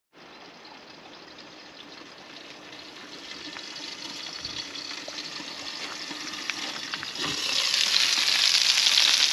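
Sausages frying in a pan, a steady sizzle that grows louder, rising sharply about seven seconds in.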